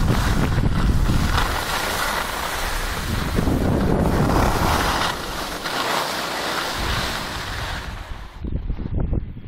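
Wind rushing and buffeting over the microphone together with skis hissing over packed snow on a downhill run, rising and falling in swells. Near the end the high rushing drops away, leaving a patchier, quieter rumble.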